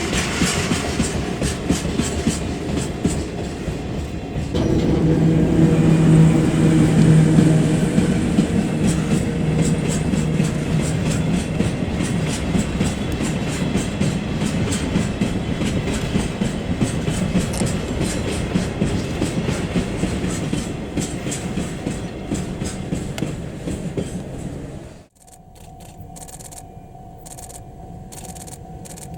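N-gauge-style model freight train running on the layout: a steady hum with rapid clicking of wheels over the rail joints. About 25 seconds in the sound drops off suddenly to a quieter steady tone.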